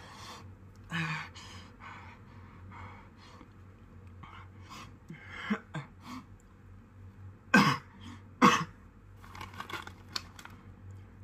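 A man coughing, two loud short coughs about a second apart some seven and a half seconds in, with softer throat-clearing and breathing around them; the coughing comes from the ghost pepper chip burning his throat.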